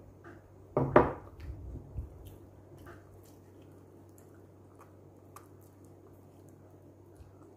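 Fingers picking at a whole fried pompano, making faint scattered clicks and soft squishes as the crisp skin and flesh are pulled apart. A louder knock comes about a second in, with a few smaller knocks just after.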